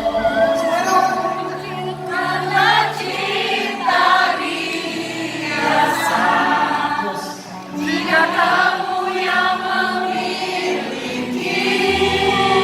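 Live pop song with singing voices over a sparse accompaniment; the bass comes back in near the end.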